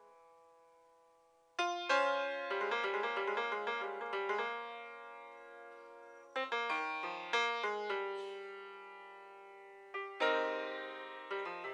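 Solo grand piano in free improvisation. After a quiet moment of notes dying away, loud struck chords and fast flurries of notes come in about a second and a half in, again around six seconds, and again near ten seconds, each left to ring and fade.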